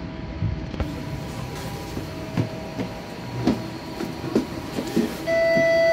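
TTC streetcar running on its rails: a steady rumble with scattered clicks and short squeaks from the wheels and track. Near the end a loud steady beep sounds for about a second.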